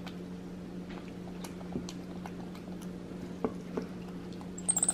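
A white-faced capuchin monkey chewing and handling pieces of cooked chicken: faint scattered clicks and smacks over a steady low hum, with a short cluster of high-pitched squeaks near the end.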